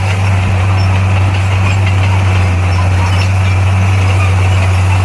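Diesel engine of heavy earthmoving equipment running steadily, a loud, even low drone that does not rise or fall.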